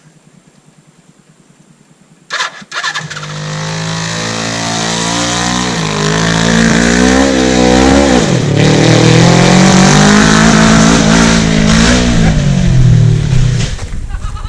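Kawasaki KZ550 LTD air-cooled four-cylinder motorcycle engine in a home-built ride-on mower, revving up: a few knocks about two seconds in, then the engine comes in and climbs in pitch, dips briefly about eight seconds in, climbs again and holds high, and falls away near the end.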